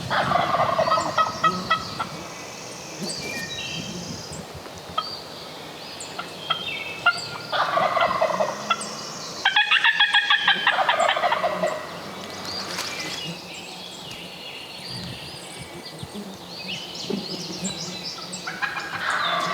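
Wild turkey gobbler gobbling four times, each gobble a fast rattling burst; two come close together around eight and ten seconds in, and the second of these is the loudest.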